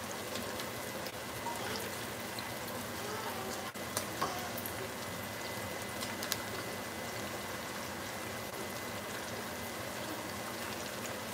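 Thick pork chops frying slowly in bubbling oil in a skillet: a steady sizzle with scattered crackles and pops.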